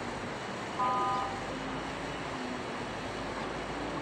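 A vehicle horn blasts once, briefly, about a second in, with fainter horn-like tones later, over a steady rushing background noise from the road and river below.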